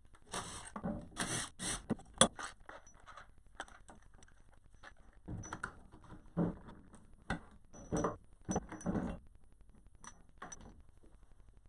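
Small metal parts and tools clinking, scraping and rattling in short clusters of clatter, with one sharp click standing out about two seconds in, as the housing of a skid-steer's electric actuator is taken apart.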